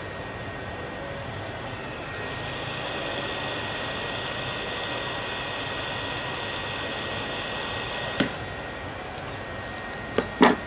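Yihua 858D hot-air rework station blowing a steady airy hiss, which gets louder about two seconds in as the nozzle is aimed at the circuit board to melt the solder. A sharp click about eight seconds in and two more near the end.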